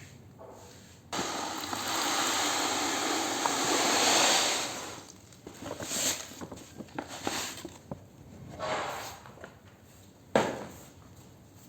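Pressed sand crumbling in water: a sudden hiss starts about a second in and lasts a few seconds, followed by scattered crackles and a sharp knock near the end.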